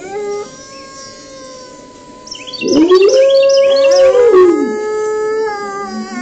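Timber wolf howling with other wolves. Several long howls overlap, held at different pitches. About two and a half seconds in, a loud deep howl rises, holds and falls away around four and a half seconds, with quick high yips over its start.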